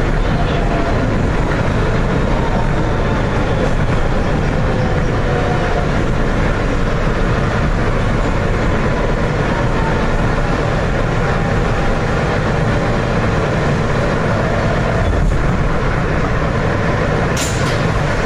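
R160B Siemens subway car running through a tunnel, heard from inside the car: a loud, steady rumble of wheels on rail with rushing noise, and a faint whine that slowly shifts in pitch. A brief high hiss about a second before the end.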